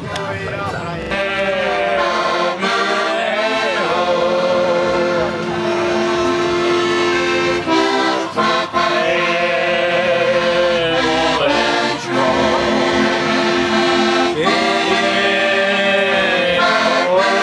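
Accordion music: held chords with a wavering melody line over them, pausing briefly twice.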